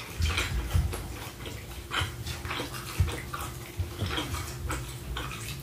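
Close-miked eating sounds: chewing with irregular wet clicks and smacks of the mouth, with low thuds underneath.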